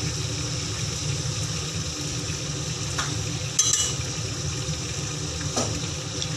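Chicken broth poured from a carton into a hot stainless-steel pot of sea cucumber, sizzling, with a metal ladle clinking against the pot a few times, over a steady low hum.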